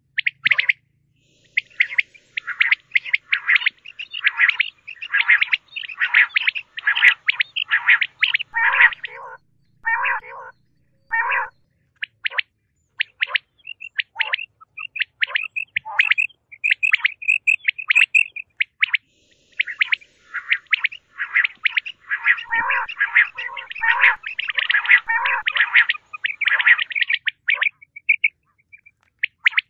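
Common quail calling in a lure recording: dense runs of rapid, chattering calls that thin out to scattered single high notes in the middle, then grow dense again.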